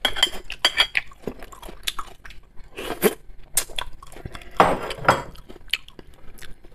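Close-miked chewing and crunching of a mouthful of fresh vegetable salad, wet mouth clicks, with a metal spoon clinking and scraping on a china plate.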